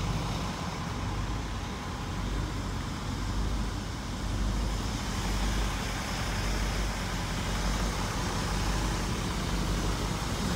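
The 7.0L V8 engine of a 1995 Ford F700 truck idling steadily with a low rumble.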